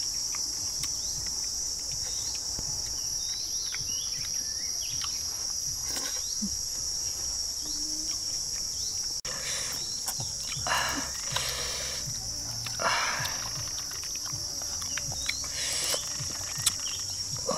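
Insects, crickets or cicadas, singing a steady, high-pitched drone. A few short noisy bursts come in during the second half.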